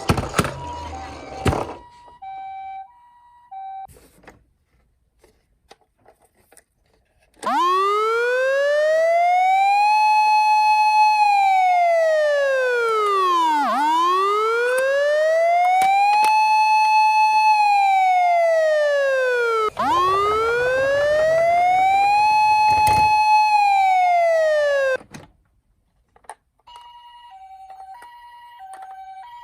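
Electronic emergency-vehicle sirens from toy minicars. A loud wail rises, holds and falls three times, each cycle about six seconds, then cuts off suddenly. Near the end comes the fainter two-tone hi-lo 'pee-po' of a Japanese ambulance siren. A few thumps come at the start and once during the wail.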